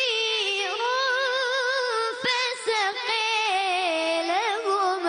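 A child's high voice chanting Qur'an recitation in melodic tajwid style, drawing out long ornamented notes with a wavering trill. The pitch slowly sinks across the phrase.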